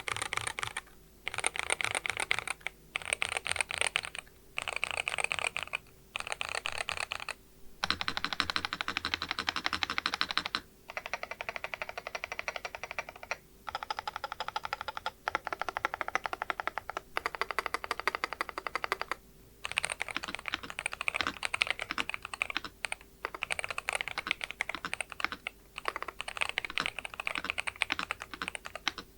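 Fast typing on a Leobog A80RT Hall-effect keyboard with Leobog Ash Wood magnetic switches: runs of rapid keystrokes broken by brief pauses every few seconds.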